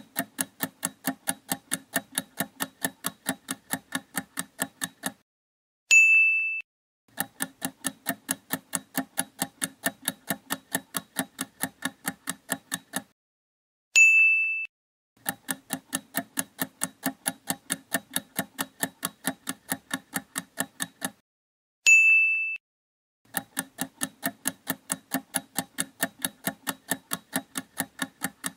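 Quiz countdown timer sound effect: clock-like ticks at roughly four a second in runs of about six seconds. Each run ends with a single bright chime marking the answer reveal. The tick-then-chime cycle repeats three times, with the chimes about 6, 14 and 22 seconds in.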